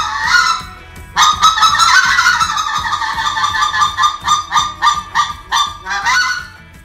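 Pacific Calls 530 specklebelly goose call blown in a series of high goose notes: a long note, a short break, another long note, then a quickening run of short clucks, ending on a rising note near the end.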